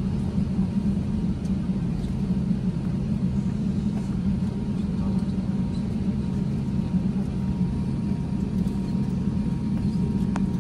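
Airliner cabin noise as the plane rolls on the runway for takeoff: a steady low rumble from the jet engines and the wheels on the runway.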